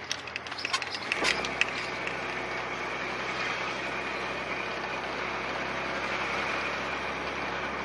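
Jeep driving along the road, steady engine and road noise, with a few sharp clicks in the first second before a steadier low hum settles in. No driveline rattle: the new drive shaft runs smoothly.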